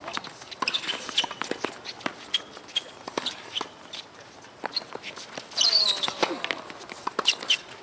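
Tennis balls bouncing on a hard court and struck by rackets: a string of sharp pops and knocks. About five and a half seconds in, a short voice cry falls in pitch.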